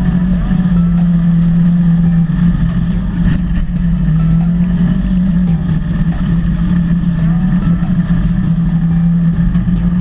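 Polaris RZR 900 side-by-side's parallel-twin engine running steadily under way, its note rising and falling slightly, with frequent sharp clicks and rattles over it.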